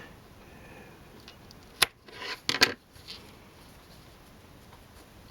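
Scissors snipping sewing thread: a sharp snip a little before the middle, then two more snips close together about half a second later, with a soft rustle of thread or fabric between them.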